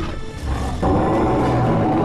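Documentary soundtrack music with a deep low rumble underneath, swelling louder about a second in.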